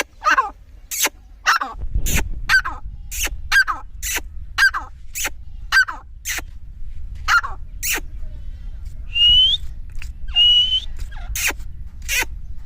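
Dakhni teetar (partridge) calling in a fast series of short, sharp notes, about two a second, with two rising whistled notes near the end. A steady low rumble runs underneath from about two seconds in.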